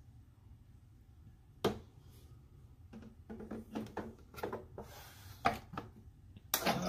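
Hand-handling of a Degritter record-cleaning machine's black plastic parts, likely its removable water tank: one sharp click a little under two seconds in, then a run of light plastic clicks and knocks, with a louder cluster of knocks near the end.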